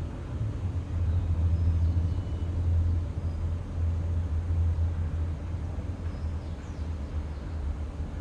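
A steady low rumble in the background, swelling about a second in, with a few faint high chirps above it.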